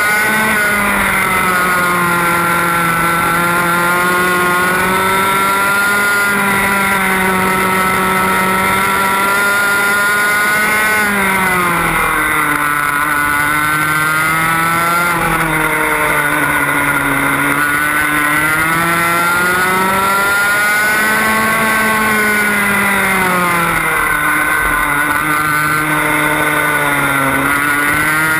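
A TAG 125cc two-stroke kart engine, recorded on board, running at high revs. Its pitch drops and climbs back several times as the kart slows and accelerates through the lap.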